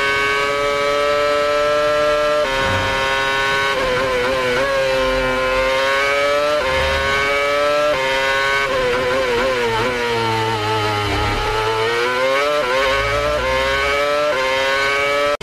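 Formula 1 V8 racing engine running at very high revs through the gears. Its pitch climbs and steps suddenly at each gear change, and about halfway through it falls through a run of downshifts before climbing again.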